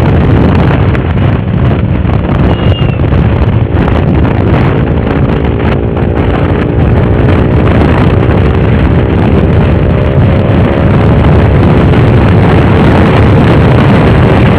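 TVS Apache RTR motorcycle engine and exhaust running at a fairly steady speed while riding, with heavy wind buffeting on the microphone.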